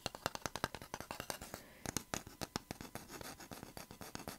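Fingers scratching and tapping on a hinged wooden measuring ruler held right at the microphone: a quick run of small, dry scratching clicks, a little softer near the end.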